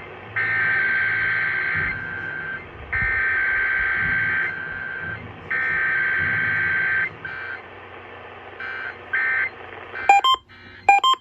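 Emergency Alert System SAME header tones heard through a radio: three identical buzzing data bursts about a second and a half long, a second apart. A few shorter bursts follow, then a series of short, sharp electronic beeps near the end.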